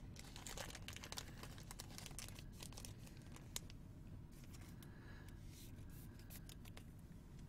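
Faint rustling and scattered small clicks of trading cards and their packaging being handled, with one slightly louder tick about three and a half seconds in.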